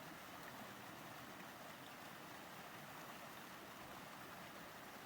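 Faint, steady rush of flowing river water, with no separate events.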